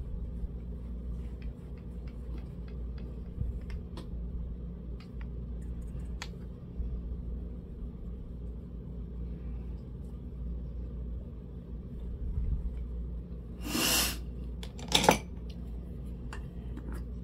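Faint clicks and taps of makeup compacts and brushes being handled over a steady low hum, with two short whooshes near the end.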